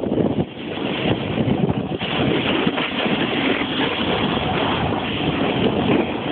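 Snowboard sliding and scraping over packed snow at speed, with wind rushing over the microphone; the noise dips briefly about half a second in.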